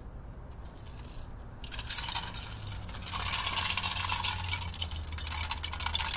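Clinking, scraping and rattling of shot-up aluminium drink cans being handled, growing louder about two seconds in, with sharp clicks near the end.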